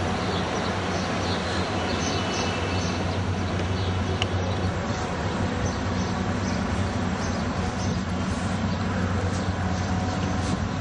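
A steady low rumble and hum of outdoor background noise, even and unbroken, with a few faint high chirps in the second half.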